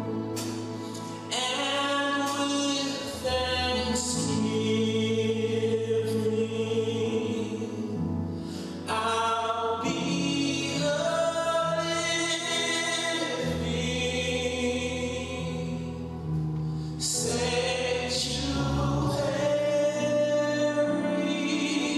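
Church praise team singing a gospel worship song together, with long held notes over sustained chordal accompaniment.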